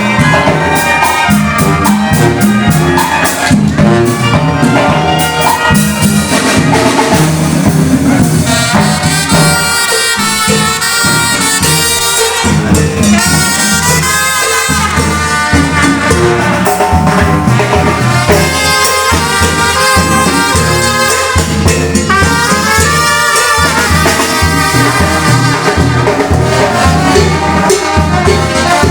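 Mexican banda music with brass leading: trumpets and trombones play over a steady bass and drum beat.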